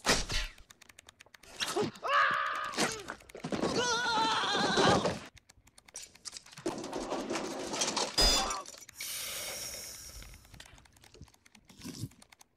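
Slapstick film sound effects: a sharp impact, then a man's drawn-out pained cries, another hit with a crash of breaking, and a hiss near the end.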